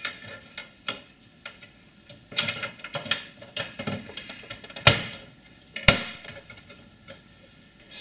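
Irregular clicks, knocks and short scraping of hands handling parts inside a Power Mac G4's open metal case while fitting expansion cards into its PCI slots. The two sharpest knocks come about five and six seconds in.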